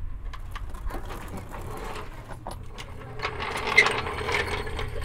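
Steel floor jack rattling and clattering as it is rolled into place under the truck, the clatter growing dense and loud over the last two seconds.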